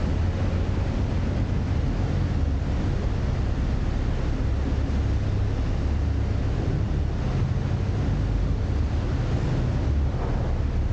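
Engine running with a steady low drone under a constant rush of wind and water noise.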